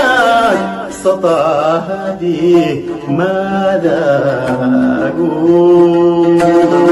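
A man singing long, wavering held notes without clear words, accompanied by plucked oud. The phrase settles into one long steady note near the end.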